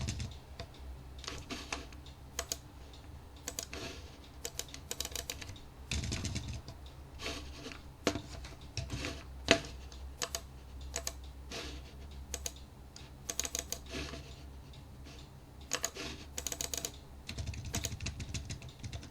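Typing on a computer keyboard in irregular bursts of key clicks with short pauses between them, one key struck harder about halfway through, over a low steady hum.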